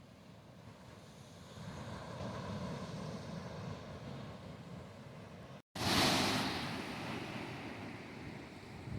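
Atlantic surf washing on a beach, with wind on the microphone. The sound swells over the first couple of seconds, cuts out for an instant just past halfway, then comes back louder with a hissing wash of a wave that slowly fades.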